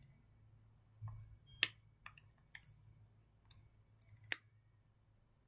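Small handling noises: scattered light clicks and rustles, with two sharp clicks, one about a second and a half in and one about four seconds in.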